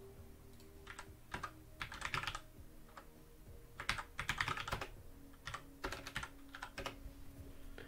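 Computer keyboard typing: short runs of keystrokes with brief pauses between them as a terminal command is entered.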